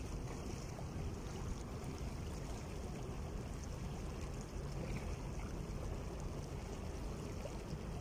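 Small sea waves washing and lapping over shoreline rocks, a steady watery rush.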